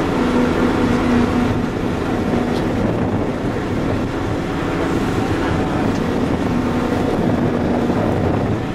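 Excavator's diesel engine running steadily, a continuous drone with a low pitched hum that fades in and out.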